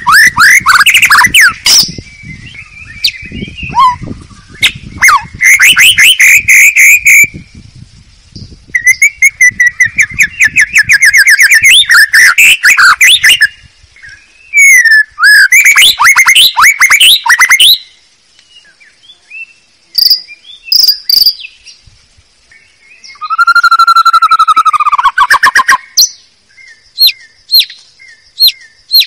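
White-rumped shama (murai batu) song from a lure recording, played loud: phrases of fast, varied whistled notes lasting a second or three each, with short pauses between them. One phrase drops lower in pitch, and near the end the song turns to a string of short sharp notes, about two a second.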